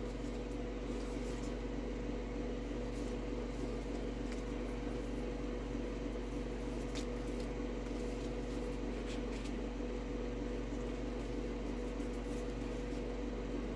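Steady electrical or appliance hum in a small room, with a few faint light ticks and rustles scattered through it.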